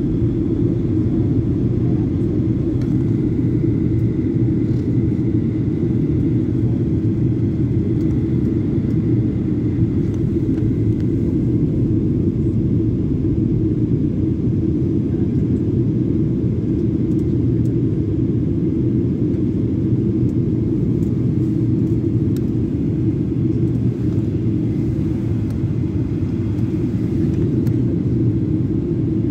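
Steady low rumble of jet engine and airflow noise inside the cabin of a Boeing 737-800 airliner on approach, with a faint high whine over the first ten seconds or so.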